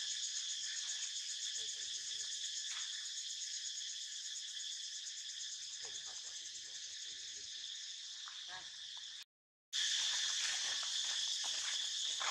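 Steady chorus of insects, a high even drone with a slight pulse. It cuts out for a moment about nine seconds in, then comes back a little louder.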